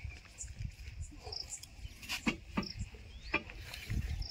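Outdoor ambience: a few short high-pitched chirps about a second apart, with scattered sharp knocks and scrapes and a low rumble on the microphone.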